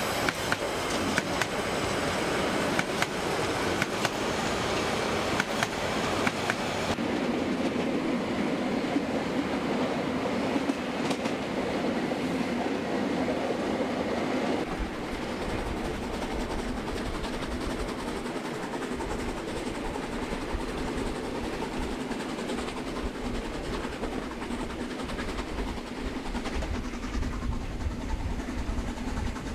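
Train running sounds: the working of the Brockenbahn's narrow-gauge steam train climbing up the Brocken, mixed with H0 model trains running over the layout's track. The sound loses its hiss about a quarter of the way in and turns to a deeper rumble about halfway.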